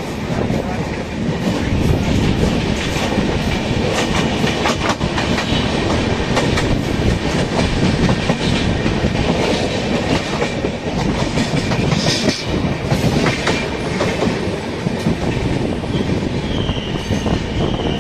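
Passenger train coaches rolling slowly through a station, heard from on board, with the wheels clattering and clicking steadily over rail joints and points.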